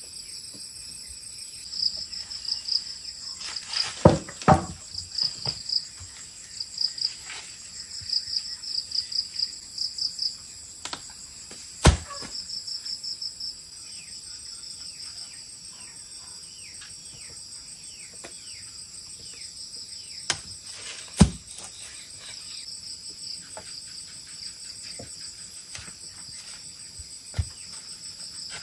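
Insects chirping in a steady high trill that pulses in short runs, with several sharp knocks and thumps scattered through it.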